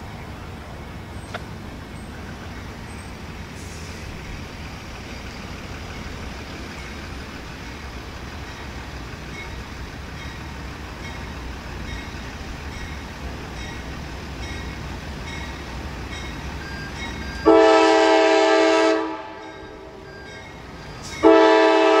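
Low steady rumble of an approaching diesel freight train, then the lead Norfolk Southern AC44C6M locomotive's air horn sounding a multi-note chord: one long blast about three-quarters of the way in, and a second long blast starting near the end, the opening of a grade-crossing warning.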